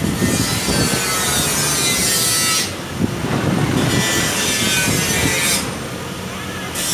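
Scraping, rasping noise of motorcycle wiring being worked by hand at the CDI connector, in two long stretches of about two seconds each and a short one near the end.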